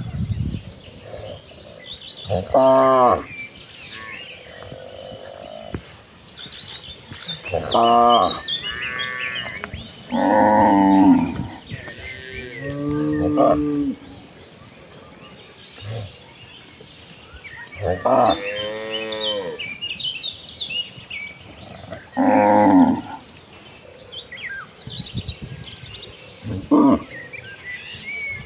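Cattle mooing again and again, about eight drawn-out moos of one to two seconds each, coming every few seconds.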